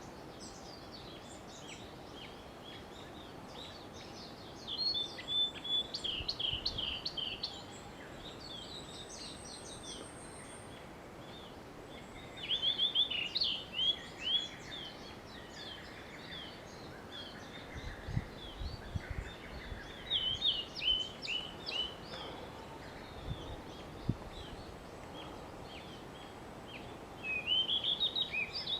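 Blue-and-white flycatcher singing: four phrases of quick, slurred whistled notes, each a couple of seconds long, spaced several seconds apart.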